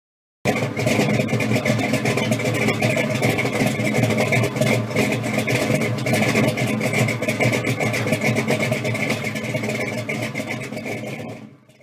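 Supercharged V8 of a 1969 Camaro Z28 pro street car running steadily. It starts abruptly about half a second in and fades out near the end.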